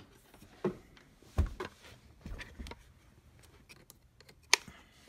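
Handling noise from a clamp meter being fitted around a power cord: scattered soft knocks and rubbing in the first few seconds, then a single sharp click about four and a half seconds in.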